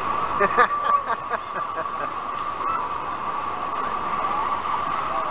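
Wave pool water rushing and sloshing under a crowd of swimmers' voices, busiest in the first second and a half, with a steady high-pitched tone over it.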